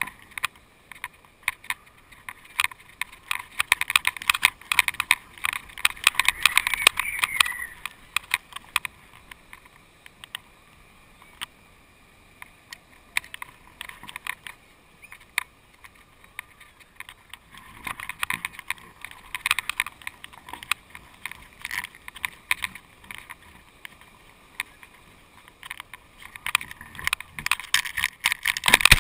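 A GoPro camera and its mount on a flying kite's line rattling and buzzing as they swing in the wind, in uneven bursts of rapid clicks. The rattling is loudest about four to eight seconds in and again near the end.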